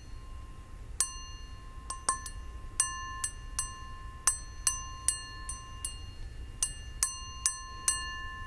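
A glass tapped over and over, about two taps a second at an uneven pace, each tap ringing out with the same bright bell-like chord of clear notes.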